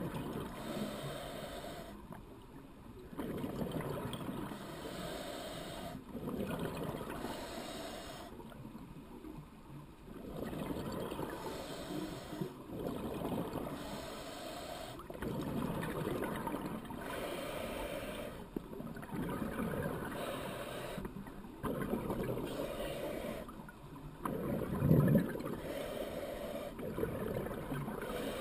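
Scuba diver's regulator breathing underwater, heard through the camera's waterproof housing: exhaled bubbles rising in muffled bubbling bursts every few seconds, with quieter stretches between breaths, and one louder, deeper burst a few seconds before the end.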